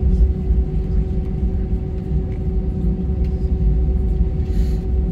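Airbus A319 cabin noise while taxiing: the jet engines' steady low rumble with a constant droning hum, heard from inside the cabin.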